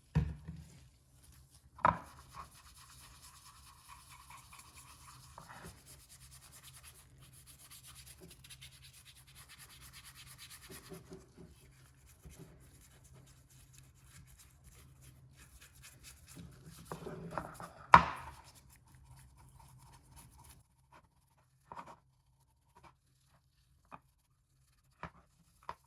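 Hand work on a small machine: rubbing and scraping over a faint steady hum, with two sharp knocks, the louder one near the end, and a few light clicks after the hum stops.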